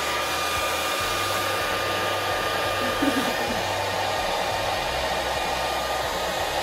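Hand-held hair dryer running steadily: a rush of blown air with a thin whine over it.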